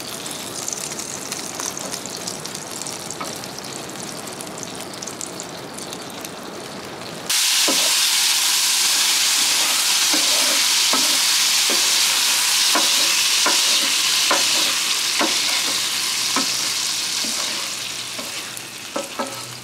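Grease and pan juices sizzling on the hot Blackstone E-Series electric griddle, stepping suddenly much louder about seven seconds in. A spatula then scrapes and taps repeatedly across the griddle top, and the sizzle eases off near the end.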